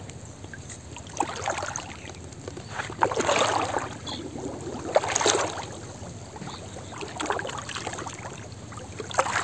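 Shallow muddy floodwater sloshing and splashing as a fishing net is hauled up out of it by hand and a man wades through it, in separate swishes about every two seconds.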